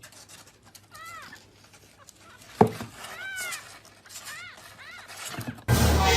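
A cat mewing: four short, high calls, each rising then falling in pitch, with a sharp knock between them about two and a half seconds in. Near the end a sudden, louder noise cuts in.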